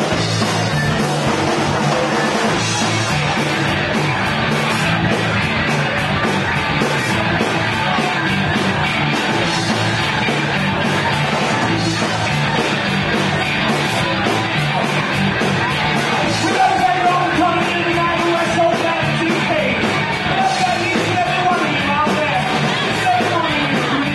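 A live rock band playing loudly: drums, electric guitar and a singer's voice.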